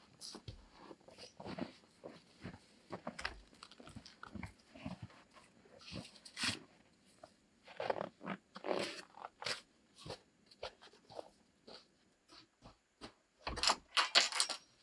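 Scattered crunching and knocking: footsteps in deep snow and handling of the wooden plank doors over a dugout entrance. Near the end comes a quick run of louder knocks and footfalls.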